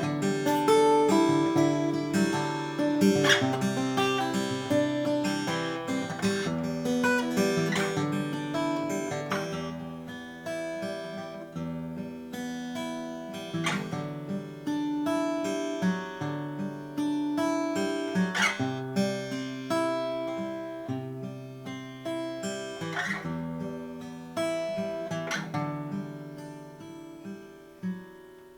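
1919 Martin 0-18, a small mahogany-bodied acoustic guitar, played solo: picked notes and a melody broken by strummed chords every few seconds. The playing grows gradually softer, ending with a final note near the end that rings away.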